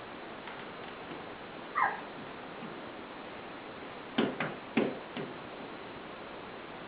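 A toddler's short high squeal, then about two seconds later four quick sharp taps close together, over a steady hiss.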